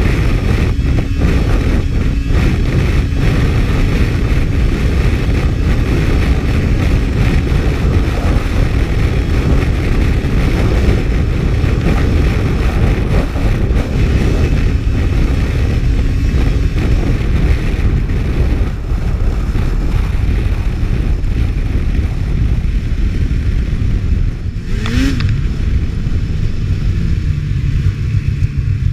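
Race snowmobile running at speed across lake ice, its engine mixed with heavy wind rushing over the microphone. Near the end the engine note falls in pitch as the sled slows.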